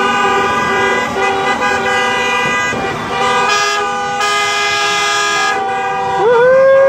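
Horns of a slow-moving truck and car convoy honking, several held horn tones of different pitches overlapping at once. Near the end a loud horn swells up and holds.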